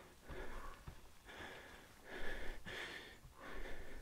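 A hiker breathing hard from the exertion of the climb: quick, repeated breaths in and out, about five in four seconds.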